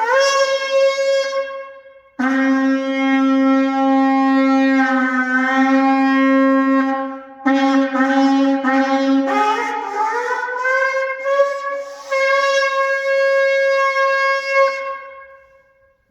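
Male sable antelope horn shofar blown in several blasts: a long low note, then a run of short notes sliding up in pitch, then a long held higher note that fades out near the end.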